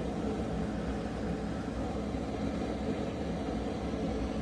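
Steady low rumbling background noise with no distinct events, like a distant engine or machine.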